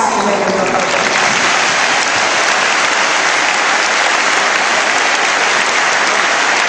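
Large audience applauding, a steady unbroken sound of many hands clapping.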